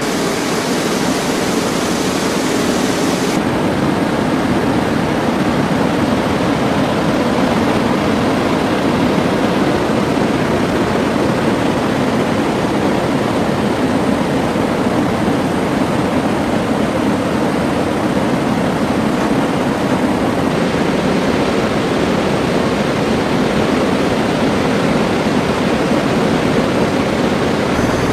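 Military rotorcraft's engines and rotors running, a loud steady noise heard from inside the cabin with the rear ramp open. The upper hiss drops a few seconds in.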